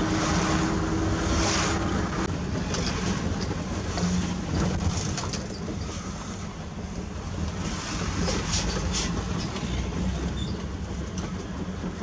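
Mitsubishi Fuso truck driving, heard from inside its cab: steady diesel engine and road rumble with cab rattle, and a few sharp clacks about eight or nine seconds in.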